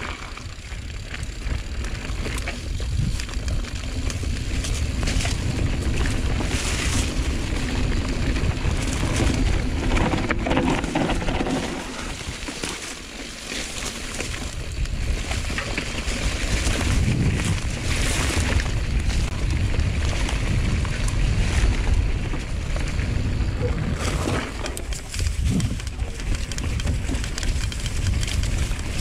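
Giant Reign enduro mountain bike being ridden down a dirt trail: continuous wind rumble on the helmet camera's microphone with tyre noise and rattles over bumps. It eases off for a couple of seconds about halfway, then picks up again.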